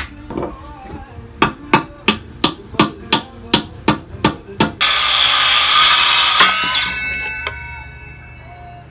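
A run of about a dozen hammer blows, about three a second. Then a loud rushing burst of noise lasting nearly two seconds, which fades out with a lingering ringing tone.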